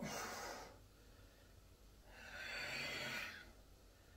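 A man's heavy, forceful exhales from lifting a kettlebell: a short sharp one at the start and a longer one about two seconds in.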